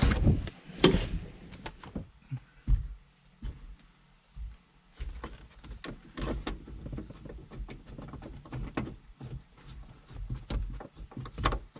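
Irregular clicks, knocks and thumps of hands working with parts and tools on the truck's cab roof area, with the loudest knock about a second in.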